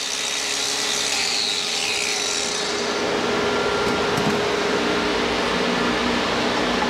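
A power grinder running steadily as it grinds down the end of a steel motorcycle side-stand tube: an even, continuous hiss of metal on abrasive with a steady hum under it.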